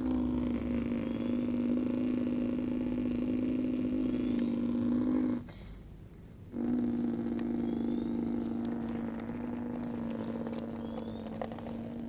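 Electric motor of an RC construction model running with a steady hum, cutting out for about a second near the middle and then starting up again.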